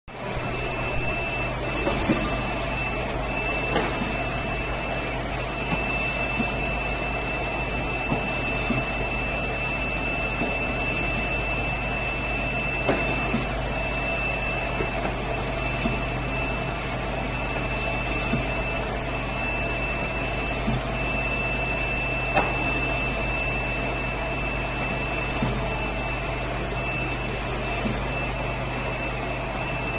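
A machine running steadily, with a constant high-pitched whine over a low hum and occasional faint clicks.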